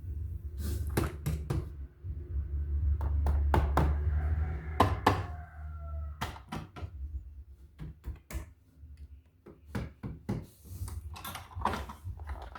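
Irregular sharp clicks and knocks of objects being handled, over a low rumble of handling noise, with a brief falling squeak about five seconds in.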